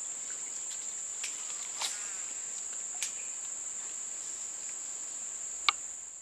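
Steady, high-pitched drone of insects in swamp forest, with a few short clicks, the sharpest and loudest near the end.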